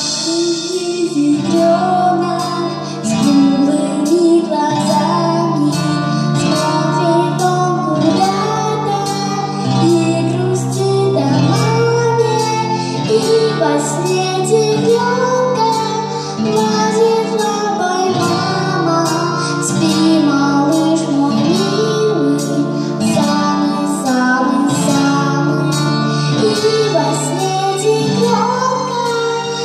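Lullaby song: a woman's singing voice carries a melody over plucked guitar accompaniment.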